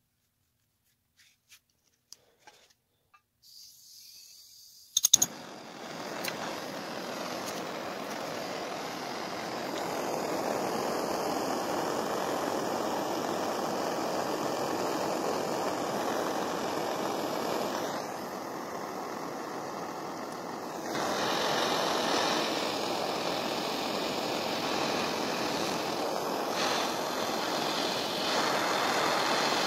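Handheld gas torch lit with a sharp click about five seconds in, then its flame hissing steadily as it is played over a steel hatchet head, a little quieter for a few seconds past the middle.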